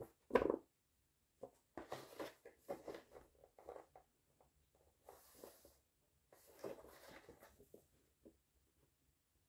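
Paper instruction booklet handled in cotton-gloved hands: pages turned, the booklet opened out and lifted, rustling in irregular bursts, loudest about half a second in, with a softer sliding hiss about five seconds in.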